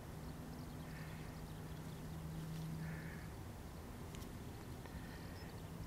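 Faint outdoor background: a steady low hum with a few short, faint distant calls.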